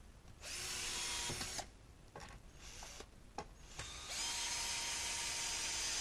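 Power drill driving screws into wood, running in two bursts: a short one of about a second, then a longer steady run from about four seconds in. It is screwing down the wooden battens that clamp the greenhouse film.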